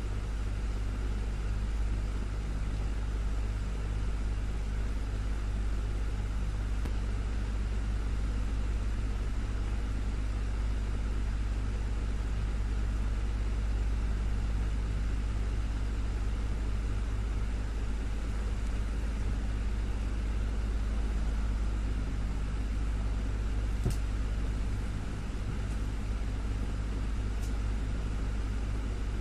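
Desktop fan running steadily: a constant low hum with an even whoosh of moving air. A couple of faint ticks come near the end.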